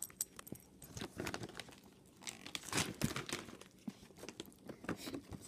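Plastic treat packaging being crinkled and torn open by hand, in irregular crackles and rustles that are busiest around the middle.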